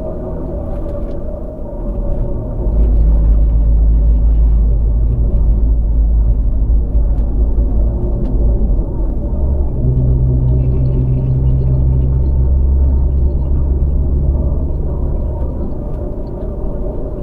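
Land Rover Freelander being driven: steady low engine and road rumble that grows louder about two and a half seconds in and shifts in pitch around ten seconds in.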